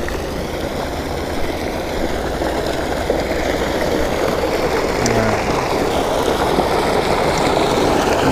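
Water gushing from a pipe outflow into a pond, a steady rushing splash that grows a little louder over the last few seconds.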